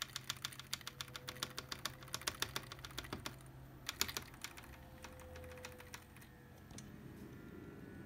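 A computer keyboard's Escape key tapped rapidly over and over at power-on to call up the startup menu, about five or six clicks a second for the first three seconds. A few more taps come around four seconds in, then the clicking stops.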